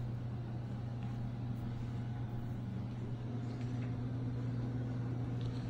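A steady low hum, like a household appliance or motor running, with a few faint ticks in the second half.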